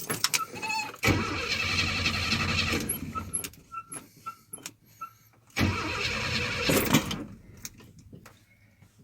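An old Chevy pickup's starter cranks the engine in two bursts, about two seconds and then a second and a half, with quiet between; the engine does not catch and run, the sign of a hard start.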